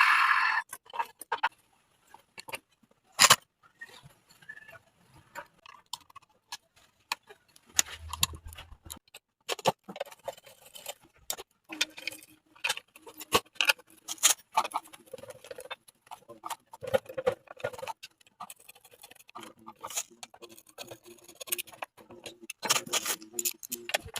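Small metal parts being handled, clicking, tapping and clinking irregularly, with one sharp knock about three seconds in and a brief low hum around eight seconds.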